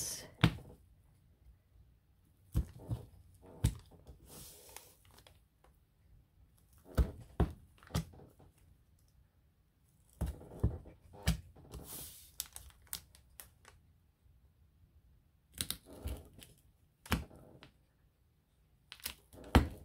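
Bookbinding awl punching holes through the layered paper and card of a handmade journal's spine, with scattered sharp clicks and taps and bits of paper crinkling between quiet stretches.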